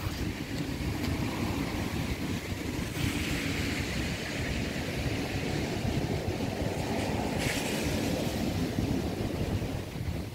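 Wind rumbling on the microphone over a steady outdoor background hiss.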